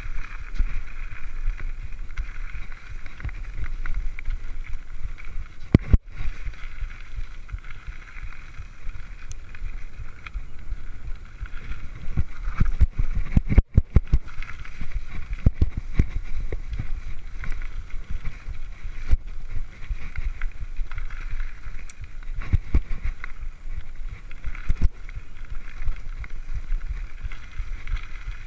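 Mountain bike riding fast down a dirt trail: steady wind rumble on the microphone and tyre noise, broken by frequent knocks and rattles from the bike over bumps, sharpest a little over halfway through.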